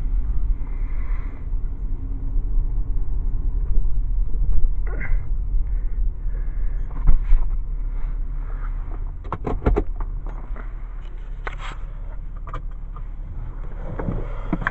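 Car driving, heard from inside the cabin: a steady low engine and road rumble, with a quick cluster of clicks about nine to ten seconds in.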